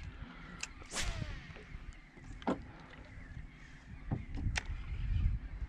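A fishing cast: the rod whips through the air with a sharp swish about a second in, and the line then runs off the reel with a faint falling whir. Scattered small clicks from reel and tackle handling, over a low steady rumble.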